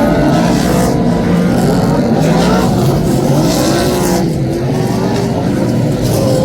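Superstock speedway cars' V8 engines racing around the track, their revs rising and falling as they pass.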